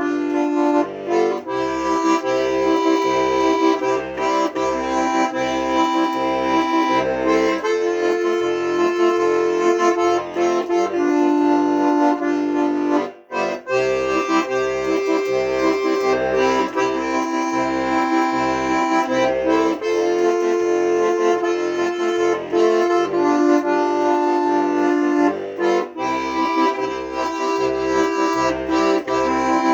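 Accordion playing a solo instrumental tune: held melody notes and chords over a steady, pulsing bass accompaniment, with a short break about thirteen seconds in.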